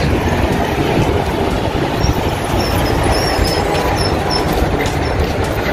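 Heavy road traffic rumbling steadily as a large truck passes on the road alongside, with a few faint high squeals in the middle.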